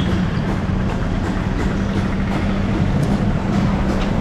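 Road traffic noise with a vehicle engine running steadily close by, giving a constant low hum.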